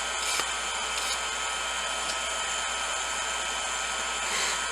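Electric air blower of a coal forge running steadily with a fan whine, with a few short scratchy hisses over it near the start and near the end.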